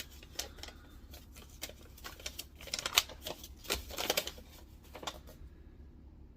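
Cards and paper from a mailed package being handled: a run of light clicks, flicks and rustles, busiest in the middle.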